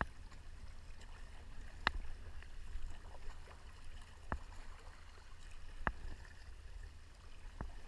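Sea kayak being paddled through swirling, boiling current: water sloshing against the hull over a low steady rumble, with four sharp clicks from the paddle strokes, about every one and a half to two seconds.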